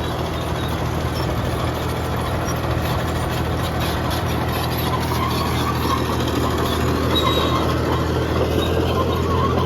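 Caterpillar D6D bulldozer's six-cylinder Cat 3306 diesel engine running steadily, growing a little louder toward the end.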